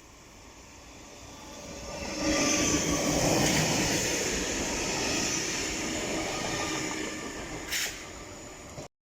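A train passing close by: the rumble and hiss of wheels on rail build up over about two seconds, stay loud for several seconds, then fade. A brief sharp noise comes near the end, just before the sound cuts off abruptly.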